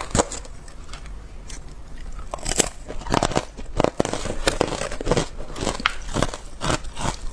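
Frozen ice sticks crackling and crunching as they are handled on a tray of matcha powder, in sharp irregular cracks.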